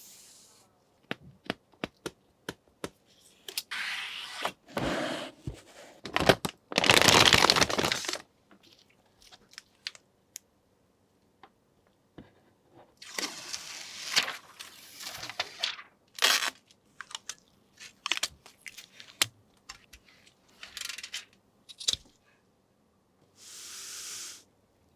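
Computer parts and their packaging being handled: scattered clicks and small knocks, with bursts of crinkling and tearing packaging, the loudest about seven seconds in.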